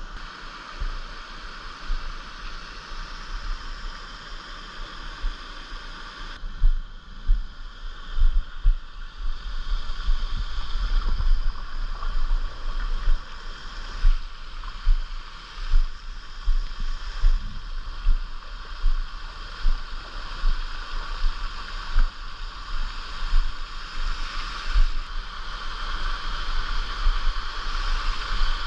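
Footsteps wading and splashing through a shallow mountain stream, about one step a second, over a steady hiss.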